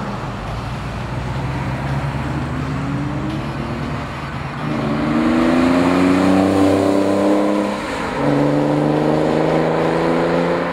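Porsche 911 Carrera 4S's 3.6-litre flat-six with a free-flow B&B stainless exhaust accelerating along the road. It runs steadily at first, then gets louder and rises in pitch about halfway through, drops at an upshift about eight seconds in, and climbs again in the next gear.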